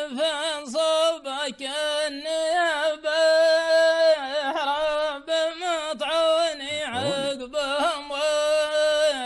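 A man's voice chanting sung Arabic poetry in long, drawn-out notes that waver in pitch, broken by short pauses for breath.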